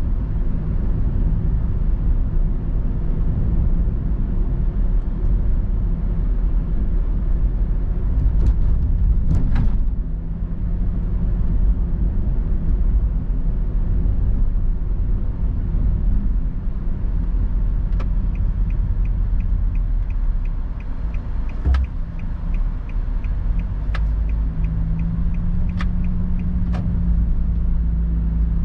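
Car engine and tyre rumble heard from inside the cabin while driving. About two-thirds of the way through, a turn-signal indicator ticks evenly for several seconds at the approach to a junction, and a few sharp knocks come through from the road.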